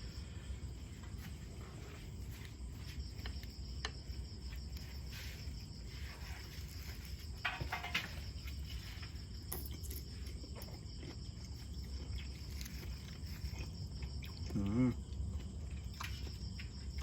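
Insects chirring in a steady, high continuous drone, with scattered small clicks and rustles of eating. A short vocal sound comes near the end.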